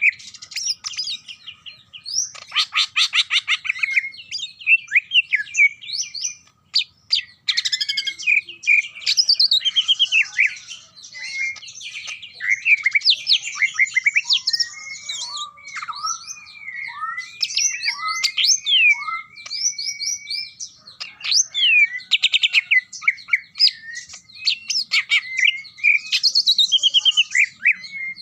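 Cucak ijo (green leafbird) singing continuously. Its song is a varied stream of rapid, chattering runs of repeated notes, mixed with whistled, sliding phrases.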